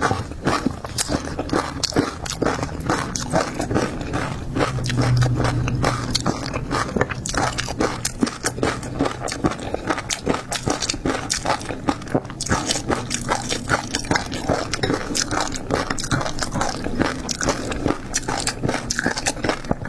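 Close-miked eating of seafood: continuous biting and chewing, a dense run of quick wet clicks and snaps.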